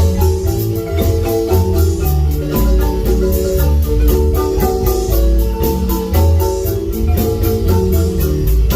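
Marimba band playing: quick mallet notes on the marimba over deep bass notes, with a fast, even beat.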